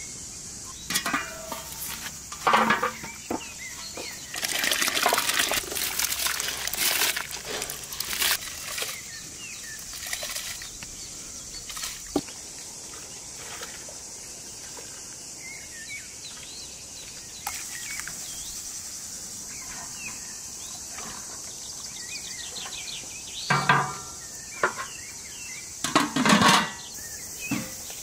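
Metal cooking pots and bowls clanking, with liquid splashing and pouring into a large pot over a wood fire, in two busy spells near the start and near the end. Behind it, a steady high chirring of insects.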